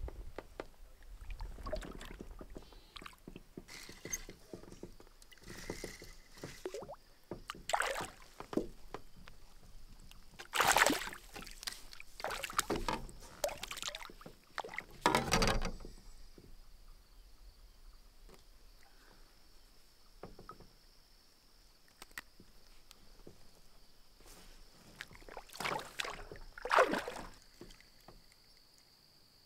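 Canoe paddle strokes in calm lake water: the blade dipping and pulling, with splashes and drips. The loudest strokes come in the first half and again near the end.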